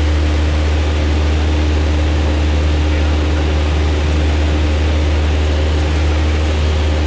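Single-engine light aircraft's engine and propeller droning steadily in level flight, heard from inside the cabin: a loud, unchanging low hum with a steady higher tone and rushing air noise over it.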